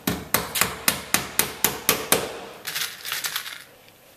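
Hammer driving copper nails into a new wooden boat transom: a quick run of about nine sharp strikes, roughly four a second, then a short patter of lighter taps that stops near the end.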